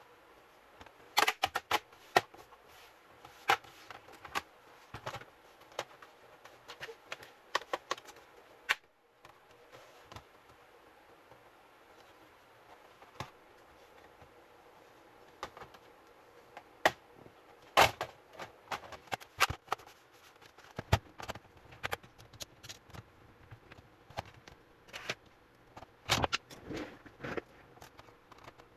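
Irregular plastic clicks and taps of a Dell Inspiron 3543 laptop's bottom cover being pressed and snapped back onto the base, in clusters with a sparser stretch near the middle.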